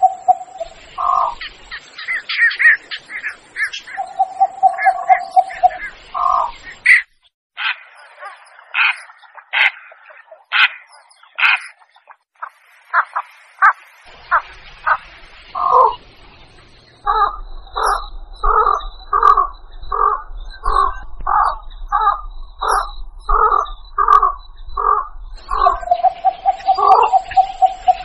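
Recorded heron (blekok) calls played as a hunting lure. A held note recurs near the start, a few seconds in, and near the end. Between them come clusters of harsh short calls, then a long even series of about two calls a second.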